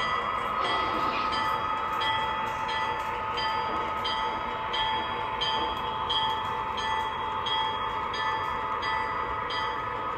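O scale model diesel locomotive with onboard sound running slowly on the layout: a steady diesel engine drone from its speaker, with a short high ringing tick repeating about every 0.7 s.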